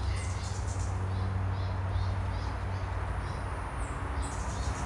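A bird calling in forest, a regular series of short high chirps that stops near the end, over a steady low rumble.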